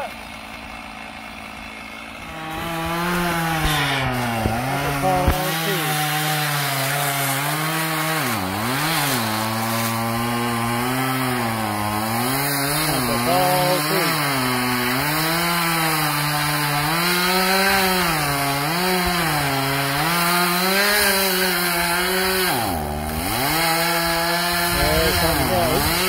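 Chainsaw cutting into a tree, its engine pitch rising and falling as it bogs in the cut and revs back up, with two deep dips. It comes in loud about two seconds in after a quieter stretch.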